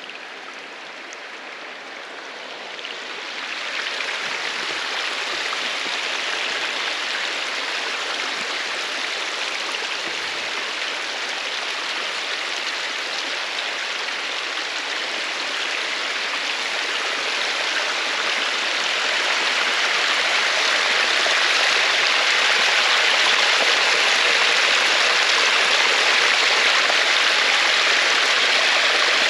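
Rushing water of a stream or waterfall, a steady hiss that grows louder about three seconds in and again past the middle.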